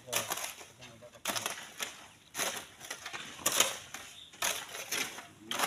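Gritty scraping of hand tools working through sand and gravel, in regular strokes about once a second.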